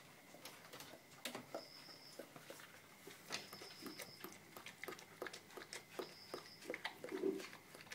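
Newborn border collie puppies suckling from their mother: a quiet, irregular string of small wet clicks and smacks, with a short low puppy sound about seven seconds in.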